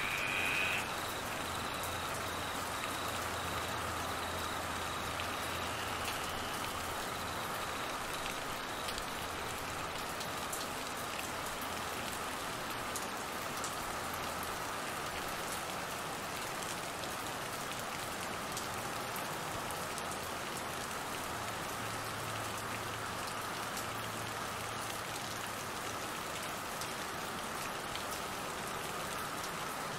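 Steady rain falling on trees, grass and flood water, an even hiss of drops.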